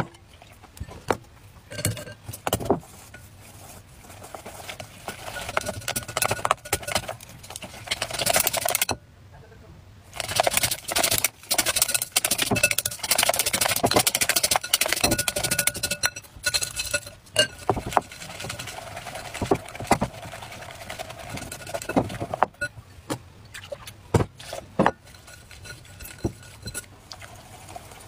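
Chopsticks beating batter in a glass mixing bowl: rapid clicking and tapping of the sticks against the glass, coming in spells with short pauses between them.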